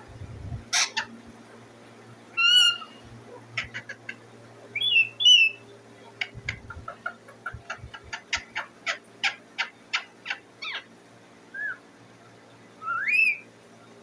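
Rose-ringed parakeet calling: a sharp screech, then short squawks, a run of quick clicking sounds about three a second, and a couple of rising squawks near the end.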